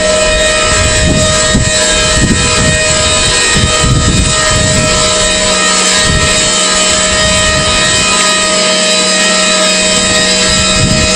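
Nike missile launcher's erecting gear running with a steady machine whine as it raises the missile to vertical. Irregular low buffeting of wind on the microphone in the first half.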